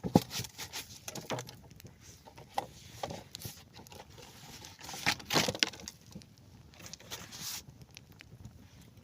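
Rustling and crinkling of packaging being handled while a field ration pack is unpacked, with scattered short knocks; the loudest burst of rustling comes about five seconds in.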